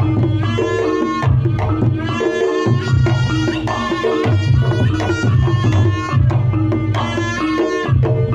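Reog Ponorogo gamelan music: kendang hand-drumming under a high pitched melody line that comes in phrases of a second or two, over a steady low gong tone.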